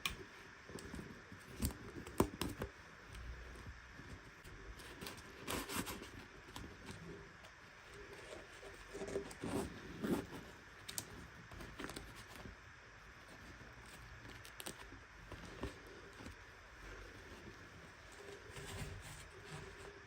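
Small plastic toy pieces and packaging being handled: scattered light clicks, taps and rustles, a few sharper clicks among them.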